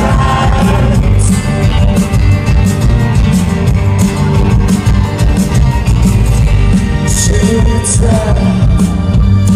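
Live rock band playing loud, recorded from among the audience: strummed acoustic and electric guitars over bass and a steady drumbeat.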